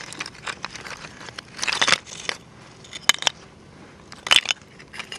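Oyster shells clicking and crunching against one another in several short bursts of sharp, brittle clicks with quiet gaps between them.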